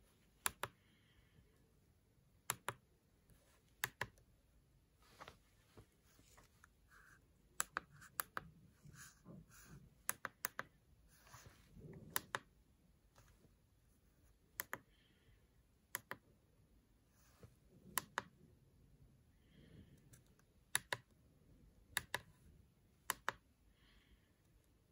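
Buttons on a TopCNC TC55H CNC controller's keypad being pressed one at a time. Each press gives a sharp click, often a quick double click, every second or two, with faint handling rustle of the unit in between.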